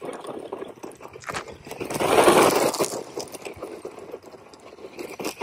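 A Hosim X03 1/14-scale RC truck's small brushed electric motor and gears whining as it drives over loose gravel, its tyres crunching and scattering stones. The sound swells to its loudest a little after two seconds in, then fades.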